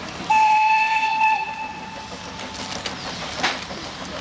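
Narrow-gauge steam locomotive whistle giving one steady blast. It starts about a third of a second in, is loud for about a second, then fades away by about halfway through, over a background hiss.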